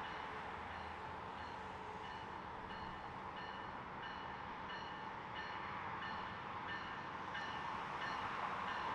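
Approaching bi-level commuter train, its running noise building slowly, with a bell ringing in steady repeated strokes, about three every two seconds.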